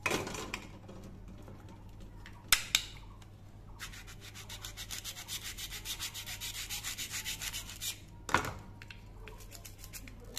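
Toy plastic knife slicing a velcro-joined plastic play apple: the hook-and-loop patch tears apart as a long rasping run of rapid ticks, from about four to eight seconds in. Sharp clacks of hard plastic pieces being handled come near the start, about two and a half seconds in, and just after eight seconds.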